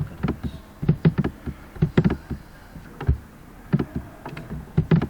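A dozen or so irregular sharp clicks and taps from a computer mouse and keyboard being worked.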